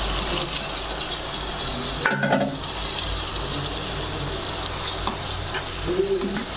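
Tomato curry gravy sizzling in a pan on the stove, with a sharp clink about two seconds in. Near the end a spoon begins stirring freshly added potato pieces through the gravy.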